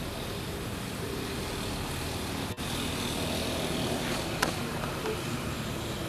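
Steady outdoor background noise, an even hiss and rumble, with a single sharp click a little over four seconds in.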